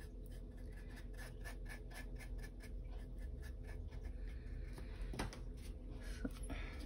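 Small paintbrush loaded with undiluted acrylic scratching across a wood panel in quick, faint strokes, several a second, with a small tap about five seconds in.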